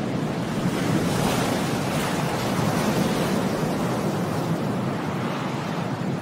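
Steady rushing of sea waves and wind.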